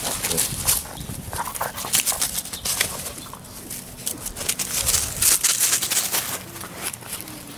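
Labrador Retriever puppies scampering over dry fallen leaves and grass, a busy run of crisp crackles and rustles under their paws.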